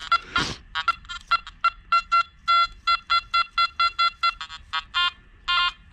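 Nokta Makro Anfibio Multi metal detector sounding its target tone as the coil sweeps over a nickel stacked with two quarters: a run of short beeps, several a second, jumping between a lower and a higher pitch. This is the jumpy, mixed signal of a nickel hidden among quarters.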